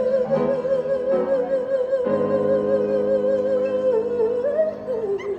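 Live pop ballad: a female lead singer holds one long note with a wide vibrato over sustained keyboard chords, which change twice. The voice slides down and fades near the end.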